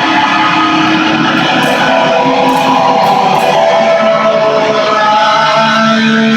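Fender Jazzmaster electric guitar played loud and noisy: a dense wall of distorted sound with held notes that shift in pitch every second or so.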